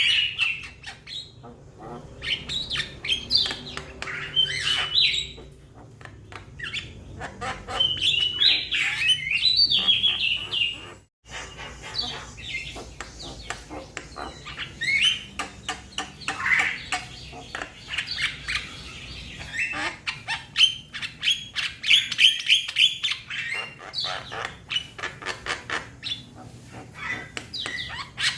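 A young Javan myna (jalak kebo) calling to its flock mates: a continuous, varied chatter of rasping squawks, chirps and clicks, with a momentary break about eleven seconds in.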